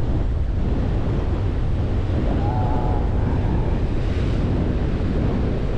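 Strong wind buffeting the microphone in a steady low rumble, over the wash of sea waves against the rocks.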